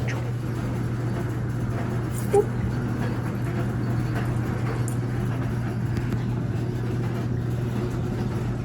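Steady low hum of a clothes dryer and washing machine running, with one short, sharp pitched sound about two and a half seconds in.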